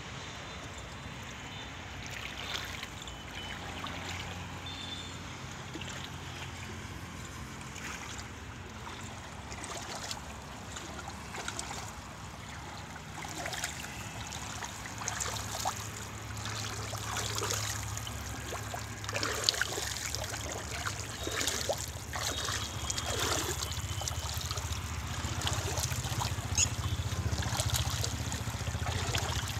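Muddy water and clay slurry sloshing and splashing as a hand churns soaked pottery clay, getting busier and louder about halfway through.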